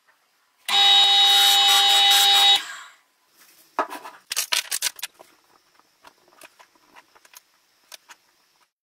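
A wood lathe spinning a wooden disc while a turning tool cuts it: a steady whine over scraping noise, lasting about two seconds before it stops. Then come a cluster of sharp wooden knocks and clicks, followed by fainter scattered clicks, as the turned disc and short bamboo tubes are handled on a wooden tabletop.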